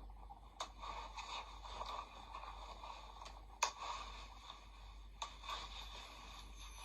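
Faint rustling handling noise with three sharp clicks spread through it.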